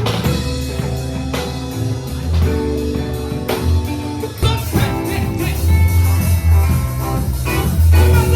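A live band playing: guitar and bass over drums, with sustained chords and heavy bass notes.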